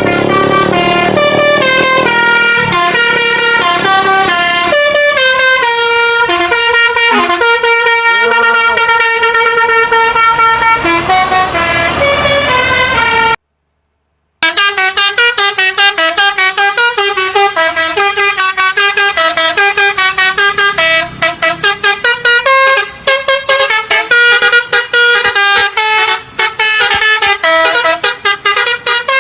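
Bus telolet horn (a Basuri multi-tone horn) on a Budiman bus playing a melody of quick stepped notes. It cuts to silence for about a second halfway through, then plays faster runs of repeated notes.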